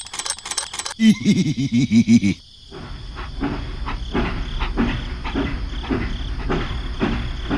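A loud, wavering, pitched cry lasting about a second and a half. Then a battery-powered toy steam locomotive runs along plastic track, with a steady rumble and regular clicks about twice a second.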